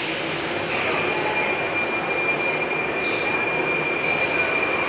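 Metro train running unseen in the tunnel or along the station: a steady rumbling noise with a single steady high squealing tone that sets in about a second in.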